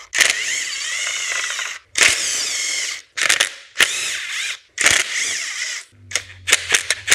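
Cordless M12 ratchet running in about five short bursts of roughly a second each, its motor whine wavering as it spins out oil pan bolts, with a run of sharp clicks near the end.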